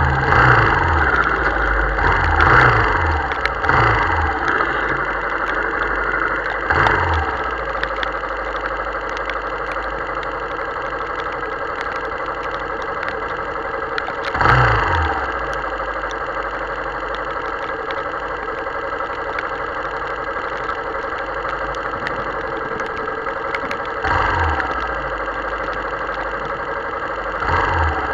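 Motorcycle engine slowing down over the first several seconds, its pitch stepping down, then idling steadily at a standstill, with brief louder surges about halfway through and twice near the end. A steady hiss of heavy rain and wet road runs underneath.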